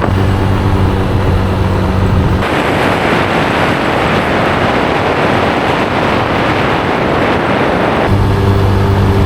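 Motorbike engine running at a steady pitch while riding, with a steady rushing noise that covers the engine for about six seconds in the middle.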